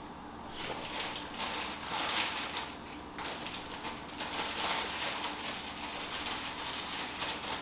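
Pen scratching across notebook paper in uneven strokes with short gaps between them, starting about half a second in.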